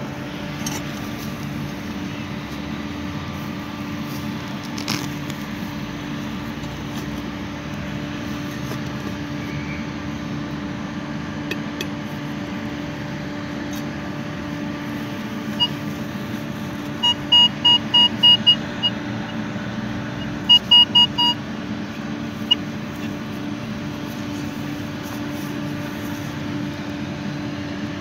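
Handheld metal-detector pinpointer beeping in short, quick bursts as it signals metal near its tip: a single beep, a run of about six, a run of about four, then one last beep, over a steady low hum.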